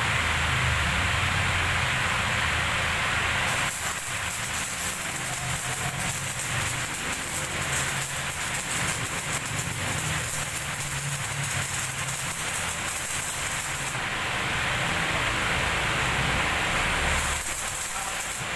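Electric arc welding: the arc crackles and sizzles steadily for about ten seconds, stops, then strikes again near the end, over a low steady hum.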